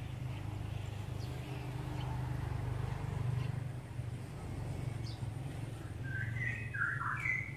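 Birds calling: faint short chirps scattered throughout, then a louder run of stepped calls near the end, over a steady low hum.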